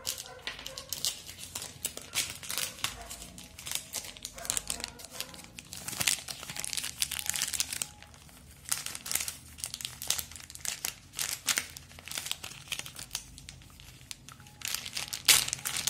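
Thin plastic packaging bags crinkling as they are handled, in irregular crackling bursts with short quieter pauses between.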